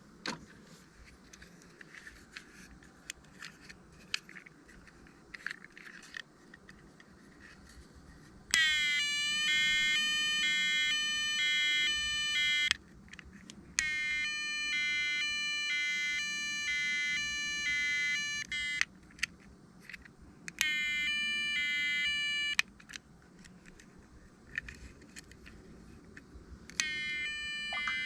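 A toy emergency minicar's electronic siren sounding in four separate bursts, each a buzzy tone stepping back and forth between two pitches. Before the first burst, about eight seconds in, there are only faint small clicks of toy handling.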